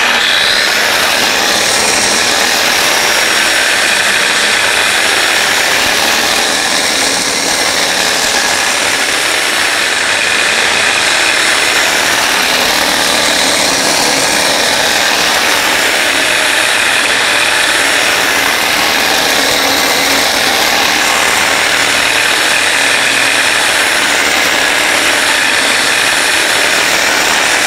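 7-inch angle grinder fitted with a grinding cup running steadily against a flat steel welding-table top, a steady high whine over the grinding noise. It is grinding spatter, high spots and rust off the table.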